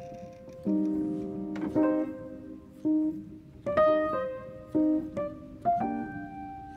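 Background piano music: notes and chords struck about once a second, each ringing and fading.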